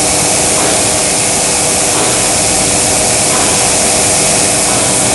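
High-frequency welding line for I-beams running: a loud, steady machine noise with a few constant humming tones underneath, unchanging throughout.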